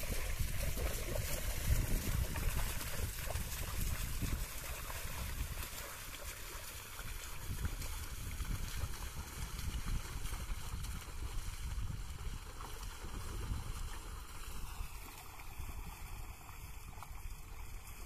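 Muddy water sloshing and splashing as a pair of bulls drag a wooden plough through a flooded paddy field, over an uneven low rumble. It is loudest early on and eases off somewhat as the team moves away.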